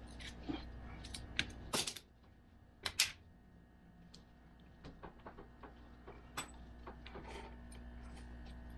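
Steel chain links of a tractor tire traction device clinking and rattling as they are handled and fitted around the tire, with two sharper clanks about two and three seconds in. A low steady hum runs underneath.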